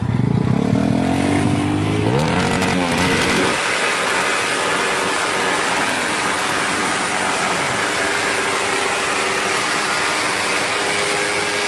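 Drag-racing engine revving hard, its pitch rising and falling for the first few seconds, then giving way to a loud, steady, noisy roar.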